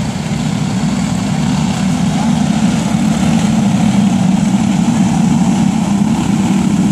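A pack of racing karts with Briggs & Stratton Animal four-stroke single-cylinder engines, running together at pace-lap speed as a steady, dense drone that grows louder as the field approaches.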